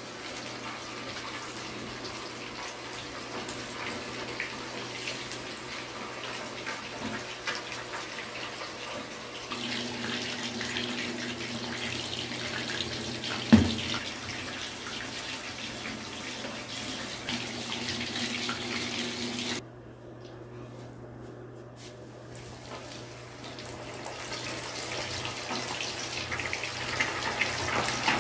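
Chicken pieces deep-frying in hot oil in a wok, a steady sizzle and crackle. A single sharp knock about halfway through, and the sizzle drops away briefly about two-thirds of the way in before growing louder again near the end.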